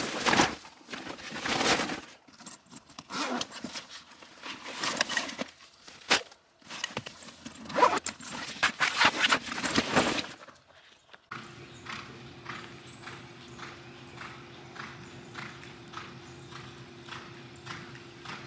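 Horse hooves clopping and scuffing on hard ground, irregular at first. In the second half a steady hum runs under slow, even hoofbeats, a little under two a second.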